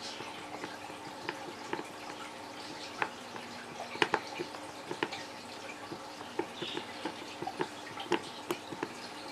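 Hot soldering-iron tip melting and scraping down a plastic edge of a tackle box lid: irregular small ticks and crackles, a few a second, with a brief cluster of louder ones about four seconds in.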